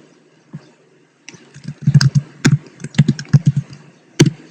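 Computer keyboard typing: a quick run of about a dozen keystrokes starting about a second in, then one louder single key press near the end.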